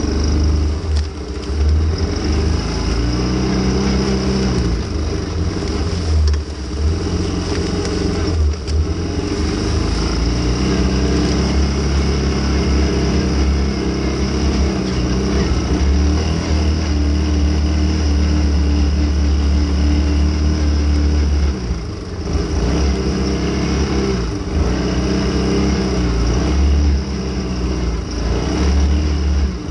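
ATV engine running while riding, its revs repeatedly rising and falling as the throttle opens and closes, with a brief drop in engine sound about 22 seconds in.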